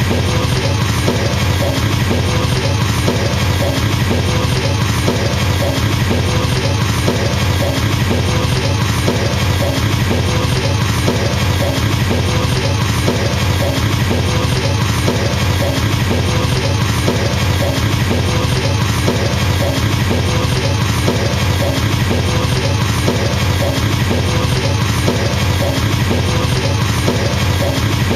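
Drum kit with a double bass drum played as a fast, unbroken stream of kicks, at a steady level throughout.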